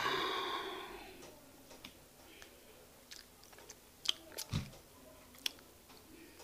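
Thick egusi soup being scraped by fingers out of a glass bowl onto a plate, with soft wet, sticky clicks and plops scattered through. A brief ringing fades away at the start.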